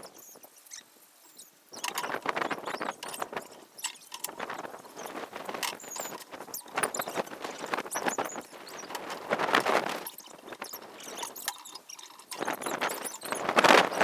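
Uneven run of scraping strokes with small clicks and knocks, quiet for the first two seconds and loudest near the end.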